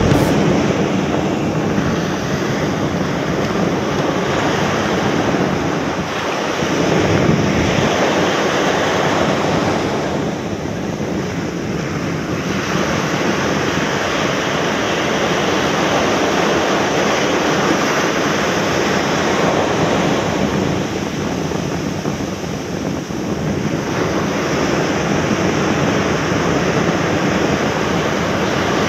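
Surf breaking and washing up a sandy beach, a steady rushing noise that swells and eases twice as waves come in, with wind buffeting the microphone.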